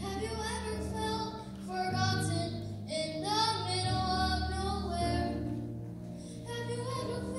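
A young girl singing a solo into a microphone over instrumental accompaniment that holds sustained low notes, her voice in sung phrases with a short break a little past the middle.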